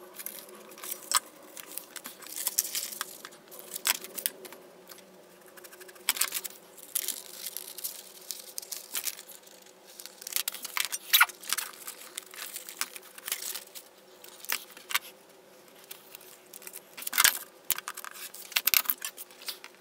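Paper and hand tools being handled on a cutting mat: sheets of paper rustling, with irregular light clicks and taps as tools are picked up and set down. Near the end, a rotary cutter runs along a metal ruler, cutting through the paper.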